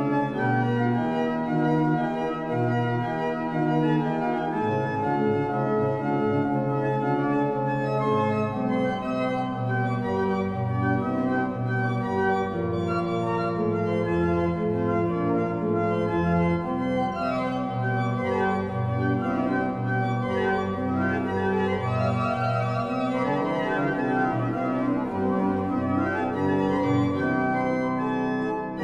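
Small Renaissance pipe organ built by Jan van Covelens in 1511, sounding its stopped flute stops, Holpijp 8' and Koppeldoof 4'. Several voices move in counterpoint over a changing bass line, each note held with a steady tone.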